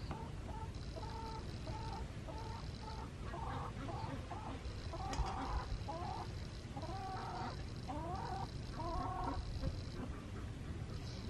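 A chicken clucking in a long run of short calls, some sliding up or down, with a high buzz coming and going behind it.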